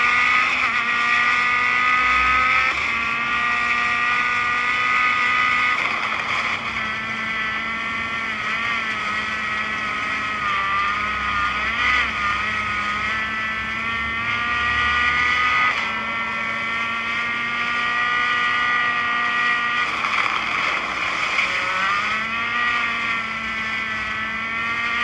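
An engine running with a steady pitched drone that rises and falls in pitch a few times.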